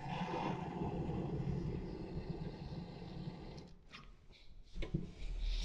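Handheld gas torch flame running with a steady rush, cutting off about three and a half seconds in, followed by a few faint clicks and a low rumble.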